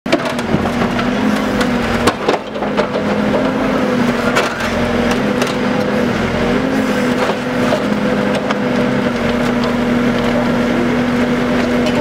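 Hidromek backhoe loader's diesel engine running steadily while its bucket digs and scrapes through soil and broken asphalt, with scattered crunches and knocks.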